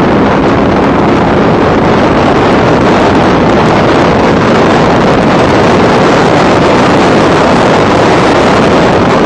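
Factory Five Cobra race car at speed, heard onboard: loud, steady engine noise blended with heavy wind on the microphone, with little distinct pitch.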